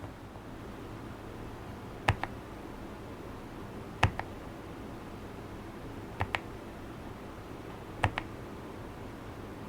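Single low-profile keyboard key pressed and released four times, about two seconds apart. Each stroke is a sharp click on the way down and a softer one on the return.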